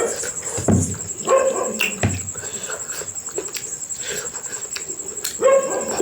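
Short animal cries, one about a second in and another near the end, with a few knocks in between over a steady high-pitched chirring.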